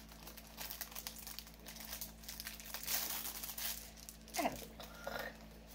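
Crinkling and rustling of the wrapping on a rolled diamond painting canvas as it is handled and unwrapped, with an uneven patter of small crackles, busiest in the middle.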